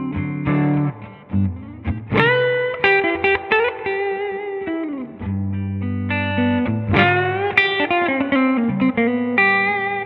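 Electric guitar played through a Rola Reverb 50 combo amplifier: a lead line of single notes with string bends that rise in pitch about two seconds in and again about seven seconds in, some notes held and left to ring.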